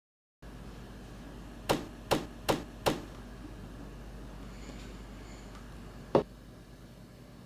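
Four sharp knocks in quick succession, about 0.4 s apart, then a single knock about three seconds later.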